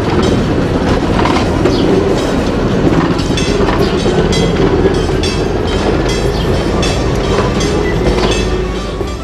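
Railway passenger coach rolling past on steel wheels, with a steady rumble and clattering clicks as the wheels cross the rail joints. The sound fades near the end as the coach moves away.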